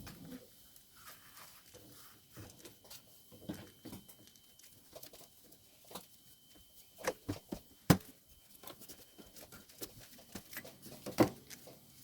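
Irregular clicks and light knocks of parts being handled and fitted on a lawnmower during reassembly, with the loudest knocks a little before eight seconds in and about eleven seconds in.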